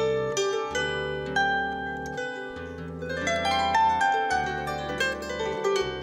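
Solo wooden harp being played: a run of plucked, ringing melody notes over changing low bass notes.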